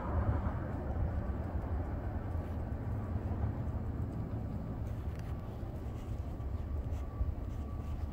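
Low, steady rumble of a freight train fading into the distance as it moves away, with wind buffeting the microphone.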